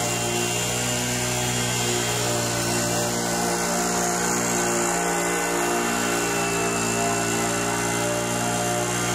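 Small petrol lawn mower engine running steadily on a remote-controlled tracked mower while it mows a slope.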